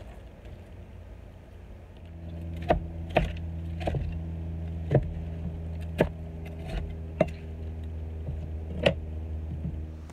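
Chef's knife chopping frozen raw shrimp on a wooden cutting board: about eight sharp, irregularly spaced knocks. Under them runs a steady low hum that starts about two seconds in.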